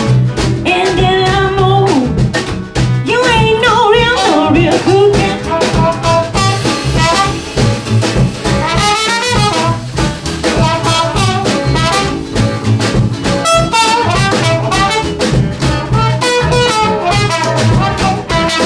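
Small acoustic band playing an instrumental swing break: a trumpet lead over plucked upright double bass, strummed ukulele and drums, with a steady beat.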